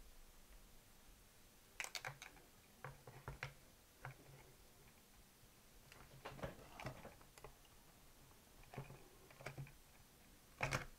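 Faint, scattered clicks and light knocks of plastic and metal parts, in small clusters every few seconds, as the circuit board and tape transport of a Sony TC-120 cassette recorder are fitted back into its case.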